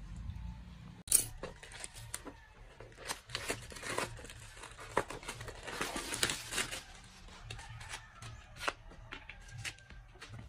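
Packaging being torn open and crinkled by hand, in a string of irregular rips, crackles and sharp clicks, the loudest a snap about a second in.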